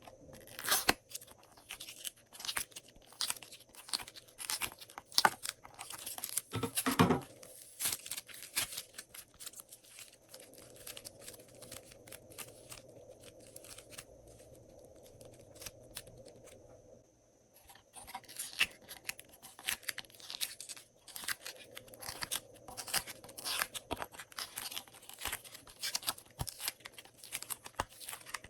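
Glossy slime being mixed and squished by hand, giving dense, irregular clicking, popping and tearing sounds. The clicks thin out for a few seconds about halfway through, then resume.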